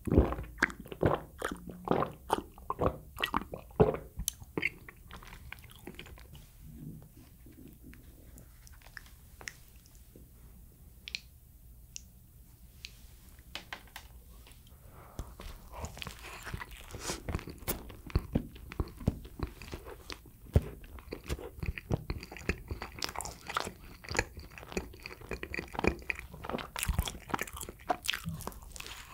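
A person biting into and chewing sweet bread and pastry, with crackling, crunchy bites and chewing. The bites come thick and loud for the first few seconds, thin out for about ten seconds, then pick up again about halfway through.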